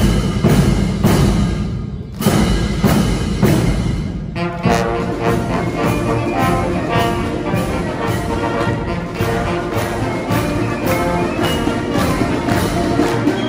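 Military band playing a march: drum beats open it, then the brass comes in about four and a half seconds in, with the drums keeping the beat.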